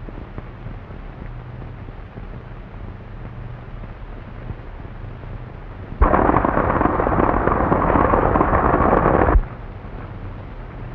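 Horse-drawn stagecoach going by at speed: a dense rumble of hoofbeats and rolling wheels that starts abruptly about six seconds in and cuts off about three seconds later. Before it there is only the steady hiss and low hum of an old film soundtrack.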